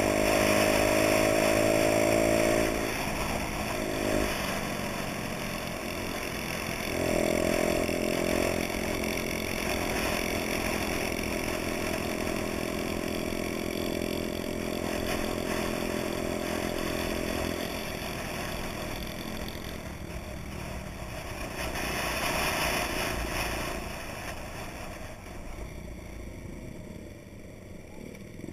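Honda Dax moped's small single-cylinder four-stroke engine running at steady throttle while riding. It is eased off about three seconds in, held steady again for about ten seconds, then dies down toward idle as the moped slows to a stop near the end.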